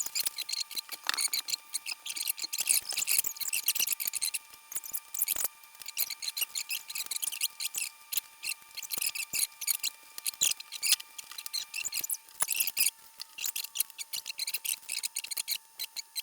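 Small plastic building bricks clicking and rattling as they are handled and pressed together, a dense run of quick, irregular clicks.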